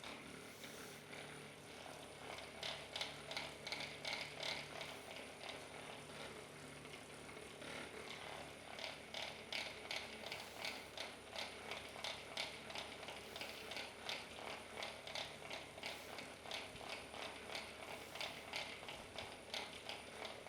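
A steady run of quick, evenly spaced clicks, about two or three a second. The clicks slacken about five seconds in and pick up again more strongly about three seconds later.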